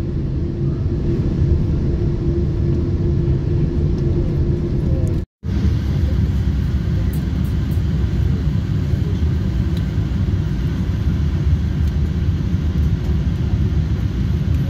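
Steady low rumble inside the cabin of a Boeing 747-8 on the ground after landing, with a faint steady hum in the first part. The sound drops out briefly about five seconds in, then the same rumble carries on.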